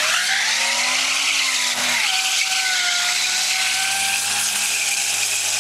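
Pontiac Grand Prix GTP's supercharged 3.8-litre V6 held at high revs while its front tyres spin on wet pavement in a burnout, giving a steady hiss of spinning, skidding tyres. The engine note dips slightly about two seconds in.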